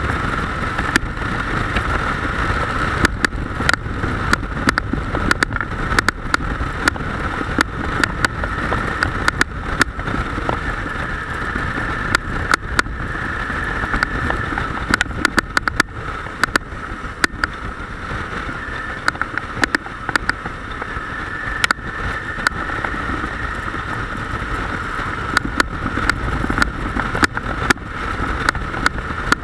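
Motorcycle riding at road speed, recorded by an onboard camera: a steady engine drone mixed with wind rush on the microphone, broken by many short sharp clicks.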